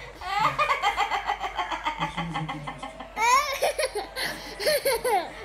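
Laughter in quick repeated bursts. About three seconds in, a toddler starts to wail and cry.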